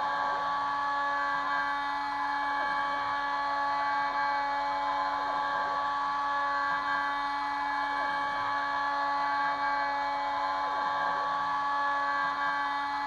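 Kress FME 800 spindle running at high speed on a Stepcraft 2/420 CNC router, its end mill cutting aluminium with a steady whine made of several held tones. A fainter tone swoops down and back up about every two to three seconds as the machine traverses back and forth along the cut.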